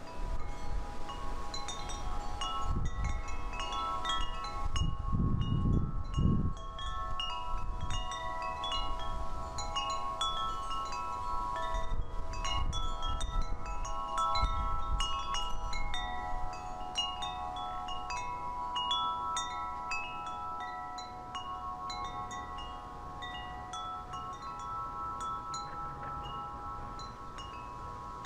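Metal wind chimes ringing in the breeze, many overlapping struck notes that sustain and decay, with gusts of wind buffeting the microphone in the first several seconds.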